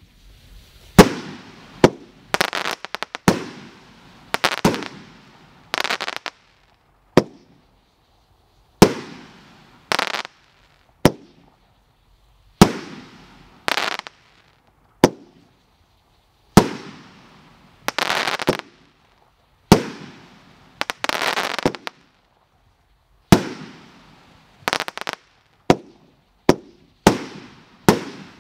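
'Gator on Wheels' consumer fireworks cake firing shot after shot: sharp breaking reports about every one to two seconds. Several are followed by a brief crackle.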